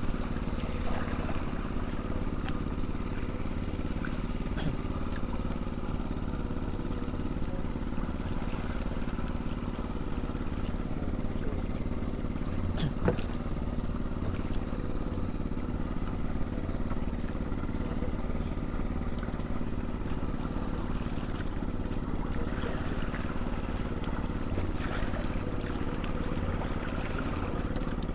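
Small fishing-boat engine running steadily at a constant speed, with one sharp knock about halfway through.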